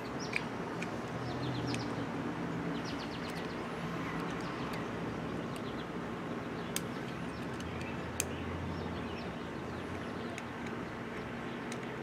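A few sharp small clicks, three standing out, as the metal parts of a tractor ignition switch are worked by hand in a bench vise, over a steady background hum with birds chirping.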